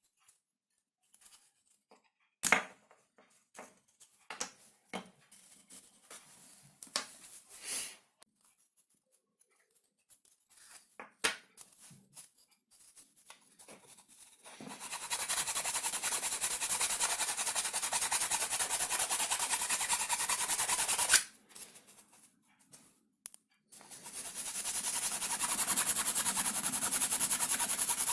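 Scroll saw cutting plywood: a steady, fast rasping of the reciprocating blade that runs for about seven seconds from about halfway in, stops abruptly, and starts again after a short pause. Before it come scattered light clicks and knocks of wood being handled.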